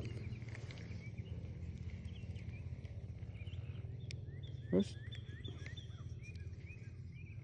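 Outdoor ambience with short high chirping calls repeating over a steady low hum, and one brief louder call about five seconds in.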